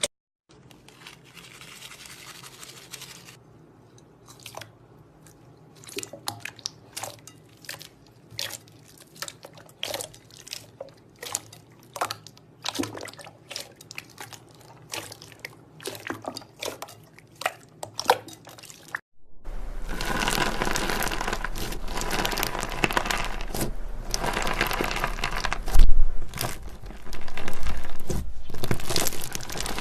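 Slime being worked by hand: a run of separate sticky pops and clicks with short pauses between them. About two-thirds of the way through, this changes abruptly to a dense, continuous crackling and crunching, with one sharp louder pop near the end.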